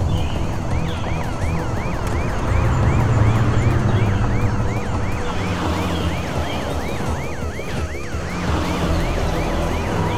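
Cartoon police car siren sounding in quick, evenly repeated falling sweeps, several a second, over a low vehicle engine rumble.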